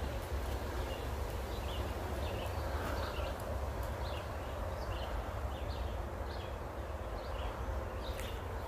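Woodland birds chirping in short, scattered calls, several a second, over a steady low drone of distant highway traffic.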